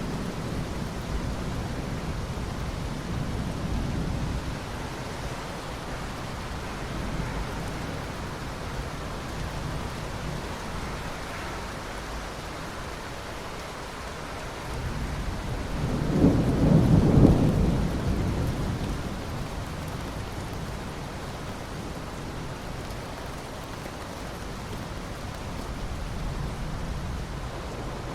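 Steady rain falling, with thunder rumbling low in the first few seconds and a louder thunderclap swelling and rolling away about halfway through.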